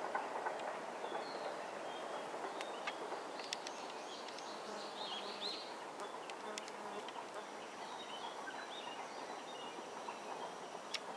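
Outdoor ambience: small birds chirping several times over a steady background hiss, with a few sharp clicks.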